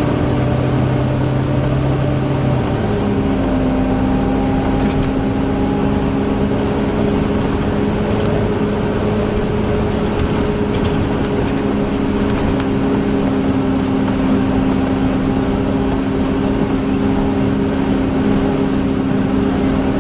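Volvo Wright Eclipse Gemini double-decker bus running, with a loud, steady hoover-like whine over its engine; the whine's pitch shifts once, about three seconds in, then holds steady.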